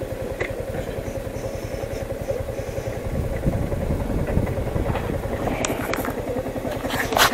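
Motorcycle engine running steadily with an even low pulse, likely the rider's Yamaha MT-15 single-cylinder. A few sharp clicks come in the last couple of seconds, the loudest near the end.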